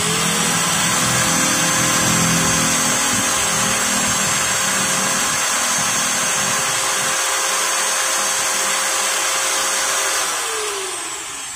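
Modern M-2300B angle grinder's electric motor winding up as it is plugged in with its switch bypassed, then running steadily at full speed. It runs again now that the broken power-cord wires are rejoined. About ten seconds in it is unplugged and the whine falls as it spins down.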